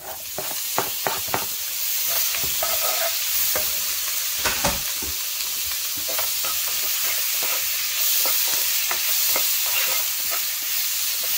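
Chopped tomatoes tipped into a hot nonstick wok of sautéed onions set off a sizzle that swells over the first couple of seconds and then holds steady. A wooden spoon clacks against the pan a few times as the tomatoes are stirred, most sharply about four and a half seconds in.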